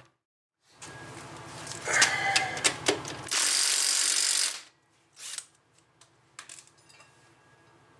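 Metallic clicks and clinks of hand tools and parts on a car's front suspension, then a loud steady hiss lasting just over a second about three seconds in, followed by a few lighter clicks.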